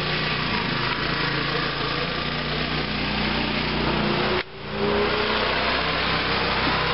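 The small engine of a mini monster truck go-kart running steadily, joined by a full-size pickup truck driving past close by, rising in pitch, about halfway through. The sound cuts out for a split second just after the truck passes.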